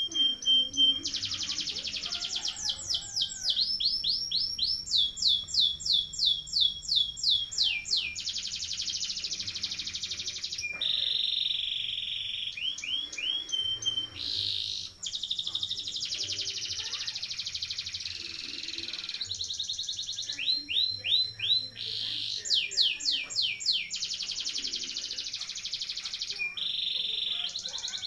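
Domestic canary singing a long rolling song: rapid trills of repeated falling notes alternate with steady, even rolls, with brief pauses between phrases.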